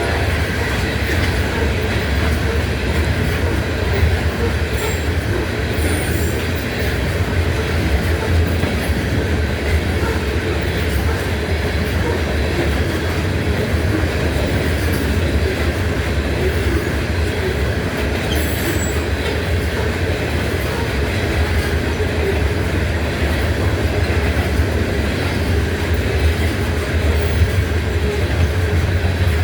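CSX freight train's cars rolling past at steady speed: a continuous rumble and clatter of wheels on rail, with brief high wheel squeals about six seconds in and again near twenty seconds.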